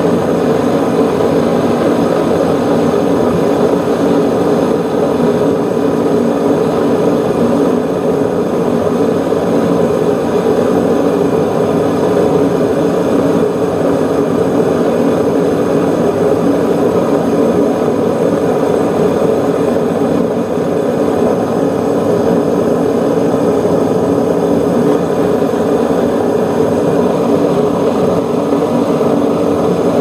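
Propane-fired metal-melting furnace's burner running at full flame: a steady, loud, even noise that does not change, while aluminum cans melt in the crucible.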